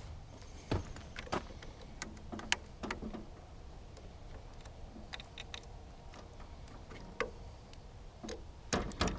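Scattered light clicks and taps of hand tools working on a tractor's battery cable ends, with a quick run of knocks near the end, over a steady low hum.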